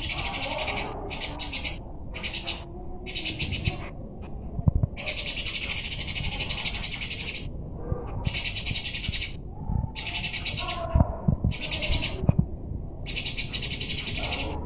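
Songbird singing long, very fast chattering trills in stretches of a second or more, broken by short gaps, with weaker lower calls and a few knocks underneath.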